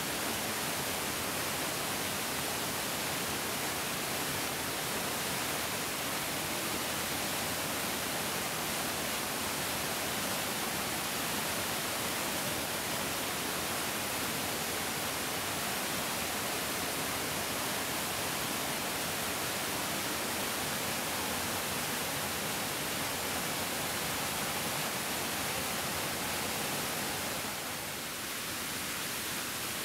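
A mountain stream rushing steadily over rocks, a continuous dense hiss with no let-up, dipping slightly near the end.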